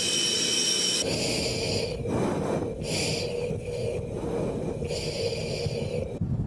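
Breathing through a fighter pilot's oxygen mask, heard over the cockpit intercom as a series of hissing breaths with gaps between them. A steady jet-engine hum runs beneath, and a high engine whine is heard in the first second.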